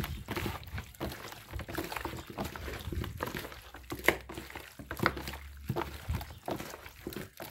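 Raw chicken thighs being mixed and squeezed by hand with seasoning in a plastic basin: irregular wet squelches and slaps of meat against meat and against the basin, the sharpest about four seconds in.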